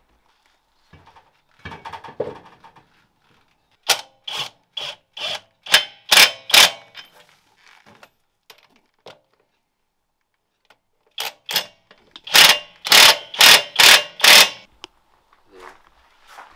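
Cordless impact wrench running the wheel nuts onto a beadlock wheel in short bursts: a run of about eight quick rattles about four seconds in, and another run of about nine, louder, towards the end as the nuts are hammered home.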